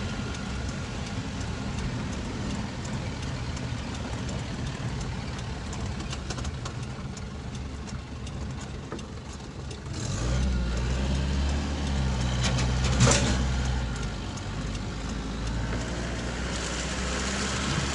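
Motor vehicle engine running steadily with road noise as it drives along. About halfway through the engine note turns deeper and louder, and a single sharp knock comes a few seconds later.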